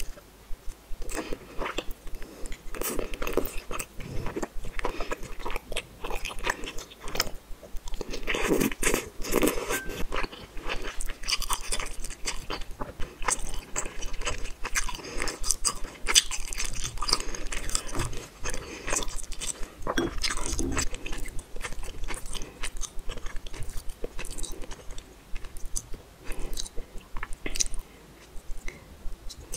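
Close-miked chewing of spicy tteokbokki rice cakes: a steady run of wet mouth clicks and smacks.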